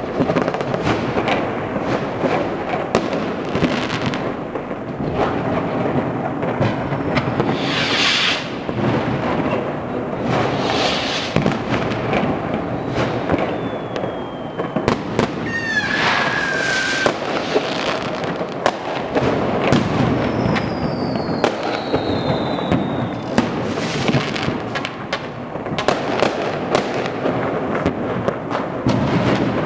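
Fireworks and firecrackers going off across a whole city at once: a continuous din of bangs and crackles, with a few falling whistles about halfway through.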